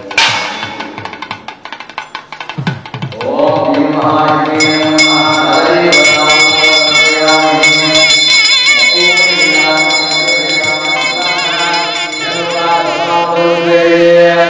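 Hindu devotional temple music: chanting or singing over drums and other percussion. It opens with a sharp strike and swells to a full, steady sound about four seconds in.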